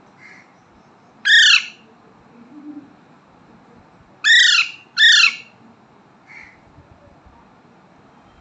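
Parrot chick giving three loud, harsh squawking calls of about half a second each: one about a second in, then two close together a few seconds later, with a few faint softer calls between.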